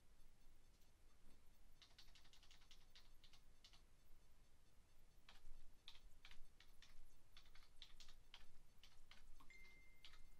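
Computer keyboard typing in two runs of quick keystrokes: a short burst about two seconds in, then steadier typing from about five seconds on.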